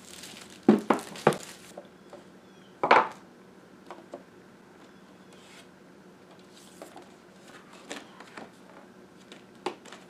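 Plastic shrink wrap crackling as it is pulled off a product box and crumpled, with a sharp knock about three seconds in. After that come quieter scattered rustles and light clicks as the cardboard box and paper inserts are handled.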